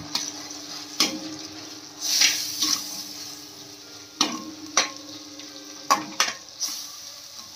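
A perforated steel slotted spoon stirs spices and onions around a stainless steel kadhai, scraping and knocking against the pan several times, over a soft steady sizzle of frying in oil.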